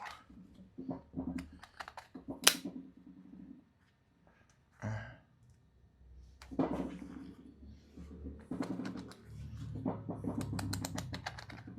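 Irregular small clicks and taps of a magnet being worked over the permanent magnets inside an electric scooter hub motor, picking up loose magnet fragments.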